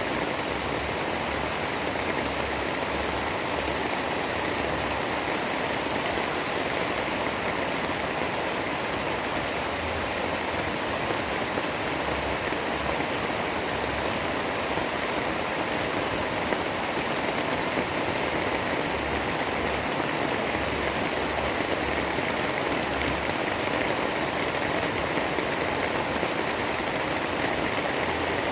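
Steady heavy rain: an even, unbroken hiss of falling water with no thunder.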